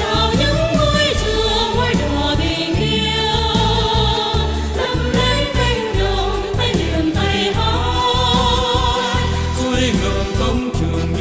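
Music: a song with a sung vocal line over a steady low beat.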